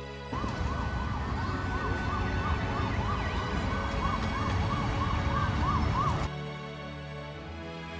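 Emergency vehicle siren in a fast rising-and-falling yelp, about two to three sweeps a second, over dense street traffic noise. It cuts in suddenly and cuts off about six seconds later.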